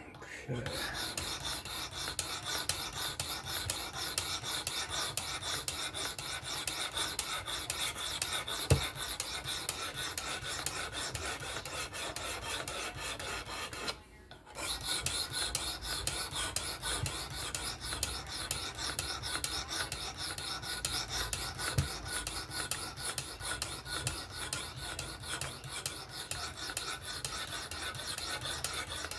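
Knife edge being sharpened on the abrasive stone of a fixed-angle sharpener: quick back-and-forth scraping strokes of steel on abrasive, with a short pause about halfway through.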